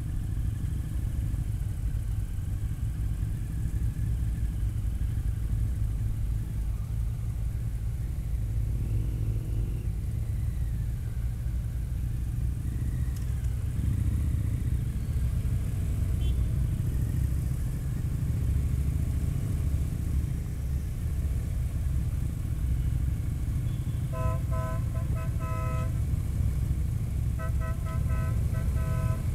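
Harley-Davidson touring motorcycle's V-twin engine running steadily under way. Near the end a horn beeps in quick pulses, in two separate bursts.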